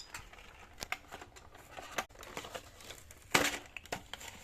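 Toy doll packaging being opened by hand: crinkling and rustling of plastic and cardboard with scattered small clicks, and one louder rustle about three and a half seconds in.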